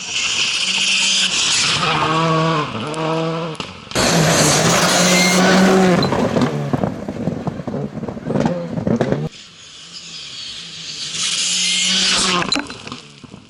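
A WRC 2 rally car's engine revving hard, the pitch climbing and dropping through gear changes, with tyre and gravel noise as the car drives past. The sound changes abruptly twice as one roadside shot is cut to the next.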